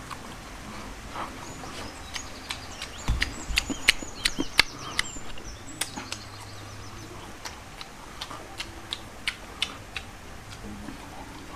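A spoon clicking and scraping against a bowl while eating, a string of quick, irregular clicks that comes thickest in the first half, with a dull thump about three seconds in.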